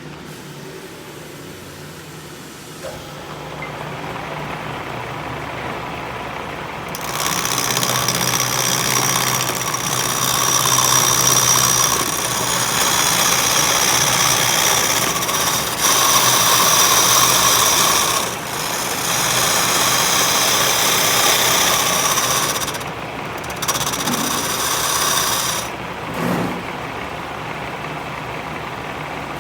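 A machine or power tool running in spells: a loud, noisy grinding sound that starts about seven seconds in and stops and restarts several times.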